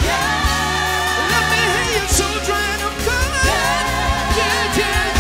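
Live gospel worship song: voices hold long, wavering sung notes over a steady bass line and drum beats.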